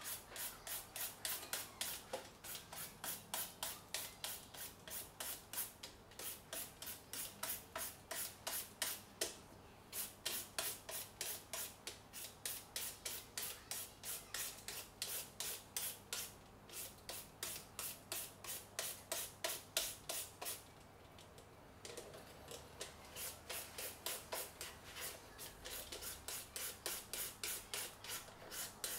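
Green papaya being shredded into thin noodle-like strands by hand: rapid rhythmic scraping strokes, about four a second, broken by a few short pauses.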